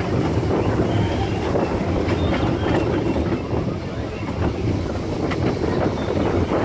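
Steel roller coaster train running along its track: a steady low rumble of the cars with wind buffeting the microphone.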